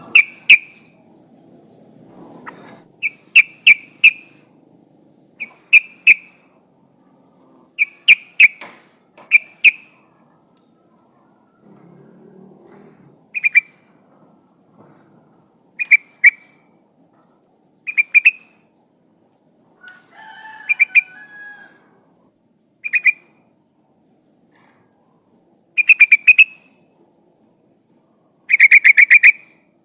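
Yellow-vented bulbul (trucukan) calling: short, loud phrases of a few quick notes every second or two, ending in a longer rapid run near the end. The uploader presents it as a female calling for a male. A different, lower call is heard briefly about two-thirds of the way through.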